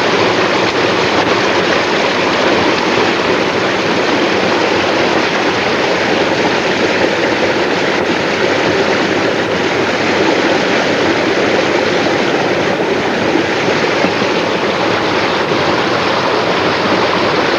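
Water spilling over a small stream dam in a little waterfall, a steady rushing that holds unchanged throughout.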